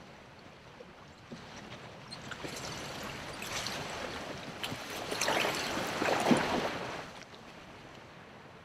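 Water splashing and sloshing as a motorized kayak's wake washes past, building over a few seconds and dropping away about seven seconds in.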